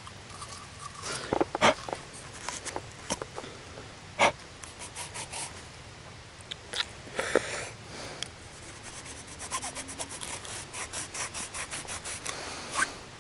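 Rustling and crackling of dry leaf litter and twigs, with scattered sharp cracks in the first few seconds and a quick run of crackles near the end.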